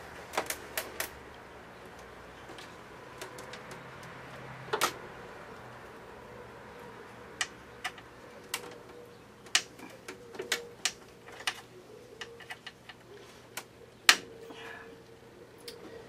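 Irregular small metallic clicks and taps of a screwdriver working the tight Phillips screws that hold the hard drive in a 1999 iMac G3, with one sharper knock near the end. The screws are stubborn and hard to turn.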